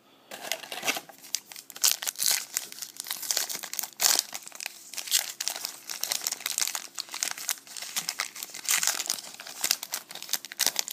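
Plastic trading-card pack wrapper crinkling and tearing as it is ripped open, a dense run of irregular crackles.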